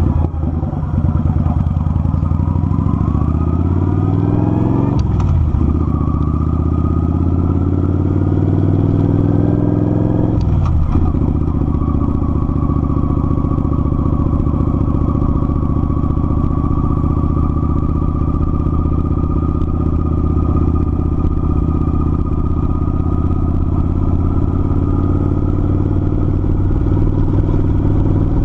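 Kawasaki Vulcan 900 V-twin engine pulling with rising pitch, shifting up about five seconds in and again about ten seconds in, then running at a steady cruise.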